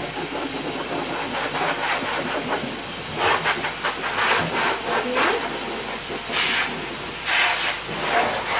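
Pet blow dryer hose at a dog-wash station blowing air at a Jack Russell terrier in a steady hiss, with several louder gusts in the second half.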